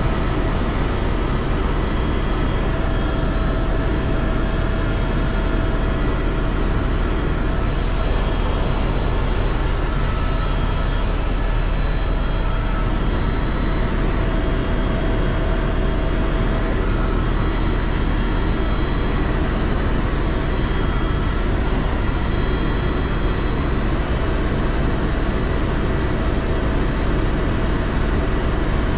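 Helicopter in flight: a steady, loud drone of engine and rotor, with faint whining tones that fade in and out.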